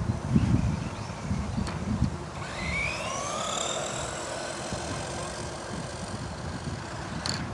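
Small electric RC car motor whining, rising in pitch as it accelerates and then holding a steady high whine that slowly fades, after about two seconds of low rumbling.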